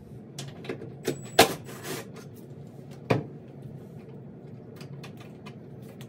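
Scattered small clicks and knocks of hands and tools working on wiring at a metal electrical box. Two sharper knocks stand out, about one and a half and three seconds in.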